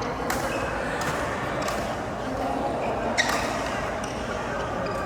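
Badminton rally: three sharp racket strikes on the shuttlecock about a second and a half apart, the third the loudest, over background chatter.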